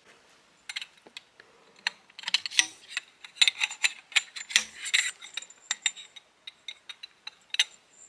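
Irregular metallic clicks, scrapes and rattles of tent-pitching gear being handled, thickest in the middle of the stretch.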